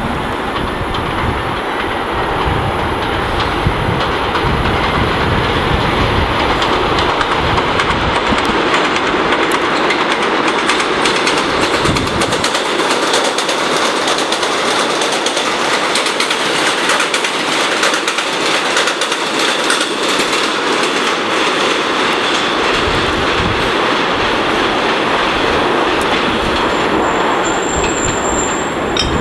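New York City Subway R160A-1 train passing at speed on elevated track without stopping: a steady rumble of wheels on rail that builds as it approaches, then fast clicking of the wheels over rail joints as the cars go by, and it recedes. A brief thin high tone comes near the end.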